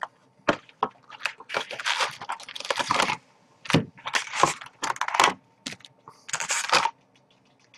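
Cardboard hobby box being opened and foil-wrapped trading-card packs crinkling and rustling as they are lifted out by hand and stacked, in short irregular bursts with brief pauses.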